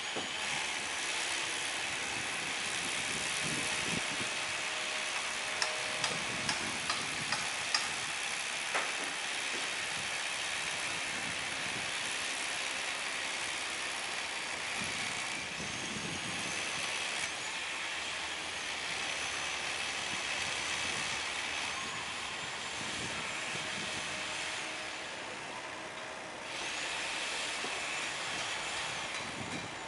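Construction site noise: a steady din of machinery, with a quick run of about five sharp knocks some six to eight seconds in. A thin high whine comes and goes in the second half.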